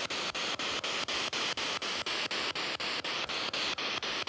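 Spirit box sweeping through radio frequencies: a steady hiss of static chopped by short regular gaps about six times a second.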